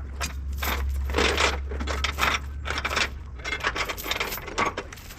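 Irregular metallic clinking, jangling and scraping. A low steady hum runs under it for the first three seconds or so.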